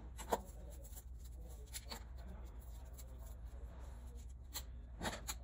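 Faint handling sounds of hands working on a wooden rocking chair: a few light clicks and knocks, a cluster of them near the end, over a steady low hum.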